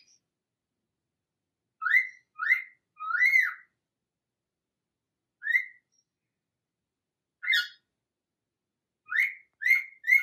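A pet parrot giving short whistled chirps: about eight single notes in an irregular series with silent gaps, each rising then dropping in pitch. One of the notes, a few seconds in, is longer than the rest.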